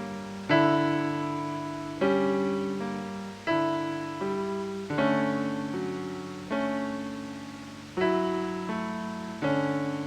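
Slow ambient piano music: soft chords struck about every one and a half seconds, each left to ring and fade before the next, with a few quieter notes in between.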